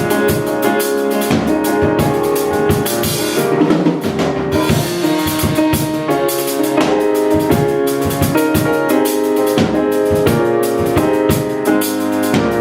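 Instrumental music: a drum kit keeps a steady beat under sustained chords, with a cymbal-like wash swelling about four seconds in.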